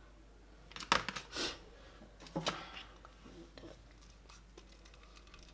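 Kitchen handling noises as a metal hand grater is set down and a plastic blender cup is picked up. There is a sharp clack about a second in, another knock about a second and a half later, and light rustling and scraping between and after them.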